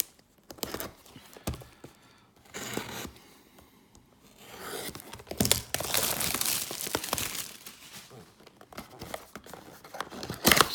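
Packaging of a Topps Heritage baseball-card blaster box being torn open: tearing and crinkling with sharp clicks and rustles, busiest in the middle, and a loud short rip near the end.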